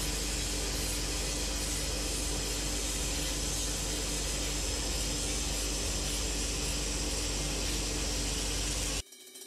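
Handheld laser rust-cleaning gun ablating rust and mill scale from steel hull plating: a steady hiss with a faint low hum under it, stopping abruptly near the end.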